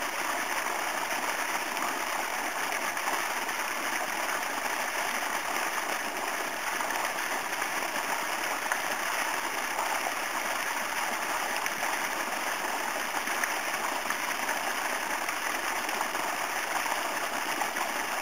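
Steady, even rushing noise, like running water, with no breaks or separate events.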